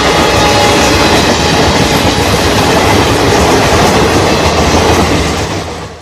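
Passenger coaches of an express train running past close by, with loud, steady wheel-and-rail noise. The diesel locomotive's horn is a faint steady tone under it that trails off about a second in. The sound fades out in the last half-second.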